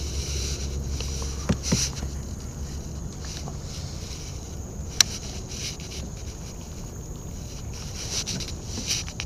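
Fishing kayak moving on a lake: a steady low rumble under a hiss of water and wind. There are a couple of knocks about a second and a half in and one sharp click about five seconds in, the sound of rod and reel being handled during a cast.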